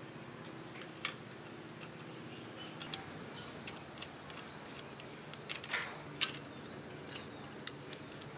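Scattered small metallic clicks and ticks from handling a rusty front derailleur clamp and its bolt on a steel bike frame, over a faint steady low hum.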